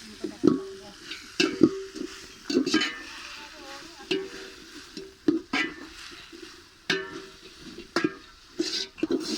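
Ginger-garlic paste frying in hot coconut oil in a pot, sizzling while a utensil stirs it, scraping and knocking against the pot about a dozen times at an uneven pace.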